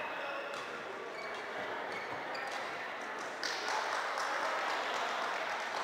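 Badminton rally in a large hall: sharp taps of rackets striking the shuttlecock and brief high squeaks of court shoes, with a broad rush of hall noise rising about three and a half seconds in.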